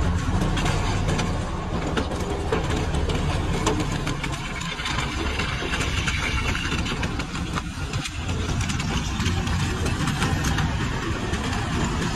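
Heavy diesel engine of a wrecker tow truck idling steadily, a low rumble that eases off for a few seconds in the middle.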